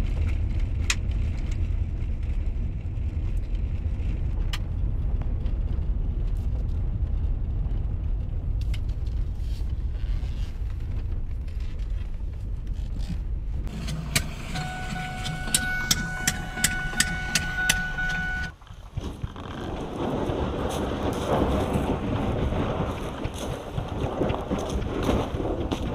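Low rumble of a car driving, heard from inside the cabin. About two-thirds of the way through, a steady tone with regular ticking, about two a second, runs for a few seconds. It is followed by a sudden break and a steadier, brighter rushing noise.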